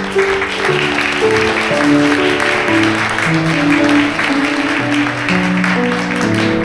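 Instrumental background music with slow, held notes, over steady audience applause.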